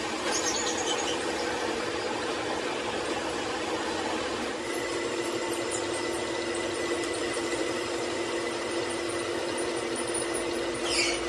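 Metal lathe running, its cutting tool turning a bearing journal on a steel gearbox main shaft, a steady machine whir with a few light ticks and a brief falling squeal near the end.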